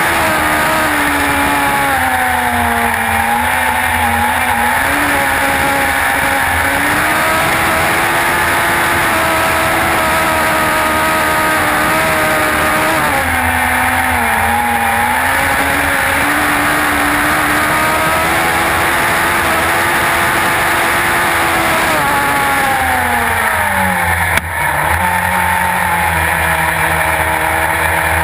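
Suzuki Hayabusa inline-four motorcycle engine of an autograss single-seater racing flat out, heard on board, its pitch rising and falling with the throttle. Near the end the revs fall steeply for a couple of seconds, with a sharp click, then hold lower.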